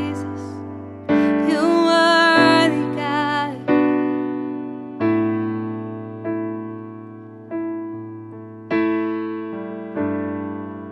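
A woman sings a short phrase over electric piano chords early on, then the Yamaha digital piano plays alone: slow chords struck about every second and a quarter, each left to ring and fade away.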